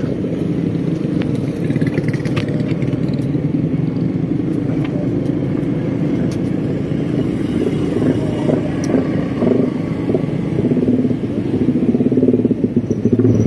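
Motor scooters running at riding speed in a group, their engines droning steadily, with a few light clicks and rattles.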